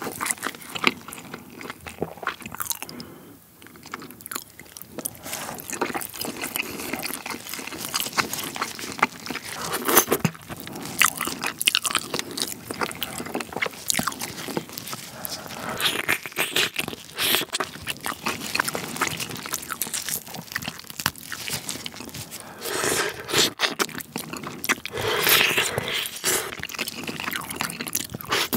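Close-miked eating: braised pork neck-bone meat from gamjatang being bitten off the bone and chewed with a dense run of sharp wet clicks and smacks. There is a brief lull about three seconds in.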